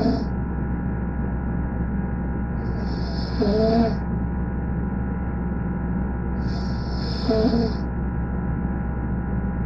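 A sleeping person snoring, one snore roughly every four seconds, each a breathy hiss with a wavering pitched rasp underneath. A steady electrical hum runs beneath it.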